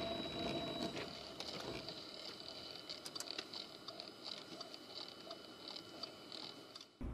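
Faint engine and road noise inside a car's cabin, dropping off about a second in as the car slows almost to a stop, with scattered light ticks and clicks.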